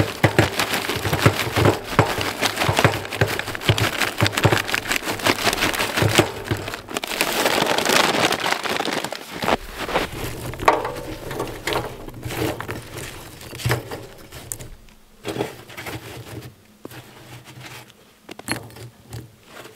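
Charcoal briquettes pouring from a bag into a metal drum stove: a dense rattling clatter for about the first ten seconds. After that come sparser clicks and knocks as the briquettes are shifted by hand.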